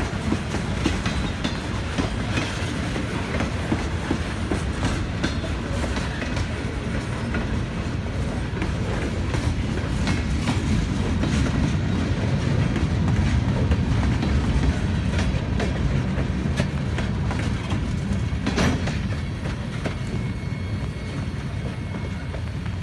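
Freight cars rolling past at a grade crossing: a steady rumble of steel wheels on rail with clickety-clack over the joints, swelling slightly in the middle. There is a sharp clank about three-quarters of the way through.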